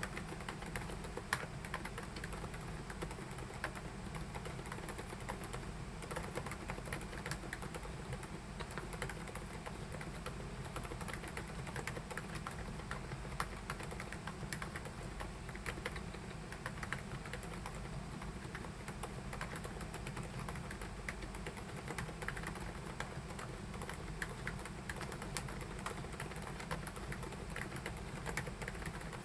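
Keychron K10 Ultra mechanical keyboard being typed on without a break: a fast, even stream of key clacks.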